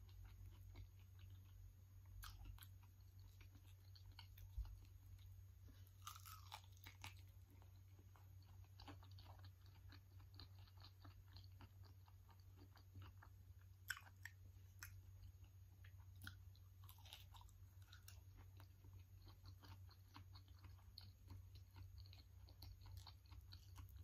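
Faint wet chewing and lip smacks of a person eating soft, creamy durian flesh, with scattered small mouth clicks and a few slightly louder smacks about four and a half and fourteen seconds in. A steady low hum lies underneath.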